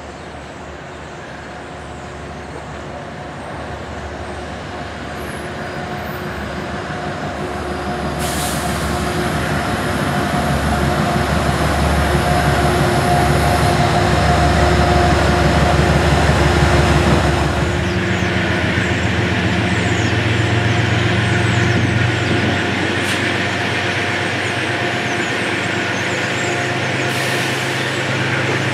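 Metro-North GE P32AC-DM Genesis diesel locomotive pulling a passenger train into the station, its engine growing steadily louder as it approaches. A long hiss of air brakes comes in partway through as it slows to a stop.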